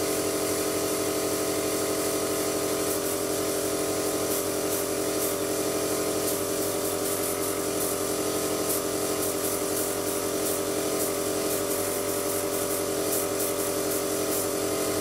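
Airbrush compressor running with a steady hum while a Badger 200 single-action airbrush hisses air and paint, the hiss coming in short spurts from about three seconds in as the trigger is worked.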